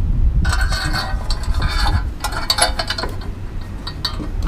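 Galvanized steel sign letter, threaded bolt and square steel tube spacers knocking and scraping together as they are fitted: a run of small metallic clinks with a light ring, starting about half a second in.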